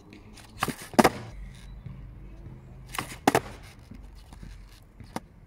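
Skateboard ollies on asphalt: twice, the tail snaps against the ground and the board lands back on its wheels about a third of a second later, with sharp wooden clacks.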